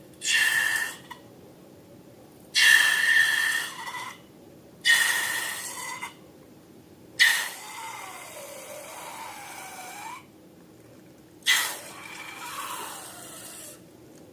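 Air rushing out of a balloon's neck in five separate bursts, each a hiss with a thin whistle in it; the longer bursts near the end have a wavering, gliding squeal.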